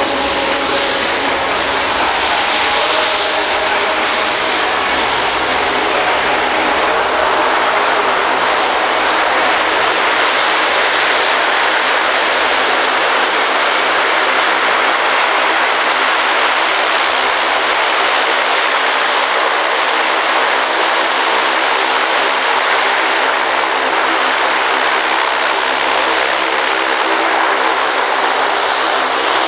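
Lockheed C-130 Hercules's four Allison T56 turboprop engines running as the aircraft rolls and taxis past: a loud, steady propeller drone with a high turbine whine that drops in pitch near the end as it goes by.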